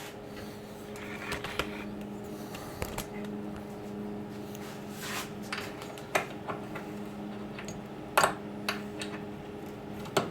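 Scattered light clicks and knocks of hardware and tools being handled while a buffer is bolted down to its wooden stand, over a steady low hum.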